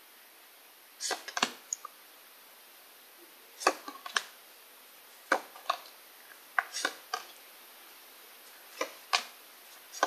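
Pokémon trading cards being flicked through by hand, each card pulled from the front of the hand and tucked behind the others with quick snapping clicks, in clusters of two or three about every second or two.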